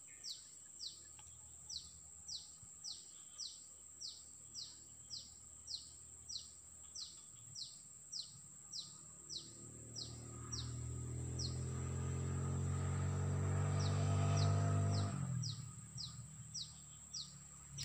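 A bird repeats a short falling chirp about twice a second, over a steady high insect whine. From about ten seconds in, a low droning hum swells, becomes the loudest sound around fourteen seconds, then drops away sharply.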